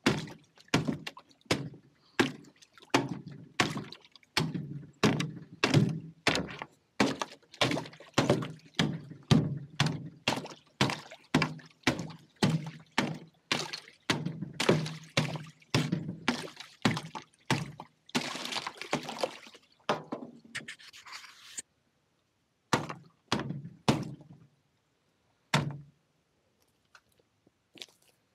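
A steady run of dull thuds, about two a second, then a hiss lasting a few seconds near the end and a few scattered knocks.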